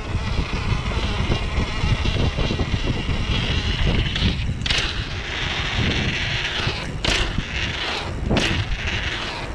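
Mountain bike tyres rumbling and rattling over stone paving. A few sharp knocks come at intervals, the last two as the bike drops down a flight of stone steps near the end.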